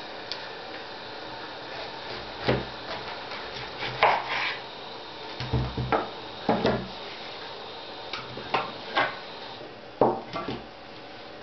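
Kitchen knife cutting a peeled pineapple lengthwise on a wooden cutting board: a dozen or so separate knocks and short scrapes as the blade works through the fruit and strikes the board and the halves are moved.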